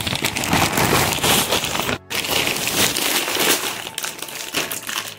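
Plastic food packets and a woven plastic sack rustling and crinkling as they are handled and unpacked, with a brief cut-out about two seconds in.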